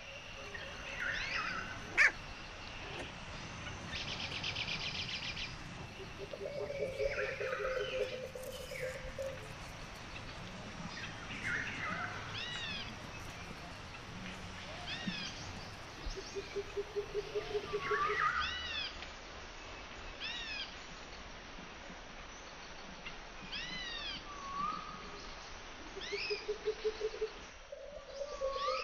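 Newborn Pomeranian puppies squeaking and whimpering: many short, high, thin cries a few seconds apart, with a low rattling grunt every so often.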